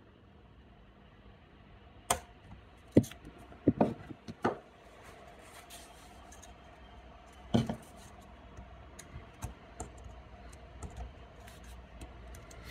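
Hand punch snapping nickel strip down into the holes of a copper bus bar onto the battery cells, pressing it flat before spot welding. Several sharp, irregular clicks come between about two and four and a half seconds in, then another near the middle, followed by fainter ticks.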